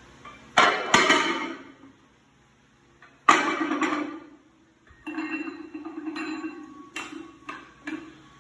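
Steel weight plates being loaded together onto a loading pin: two loud metal clanks under a second in and another about three seconds in, each ringing on, then a lingering ring with several lighter clinks of metal on metal.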